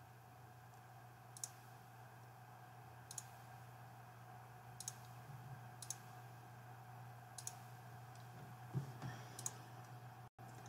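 Faint computer mouse clicks, about six of them, spaced a second or two apart, over a steady low electrical hum.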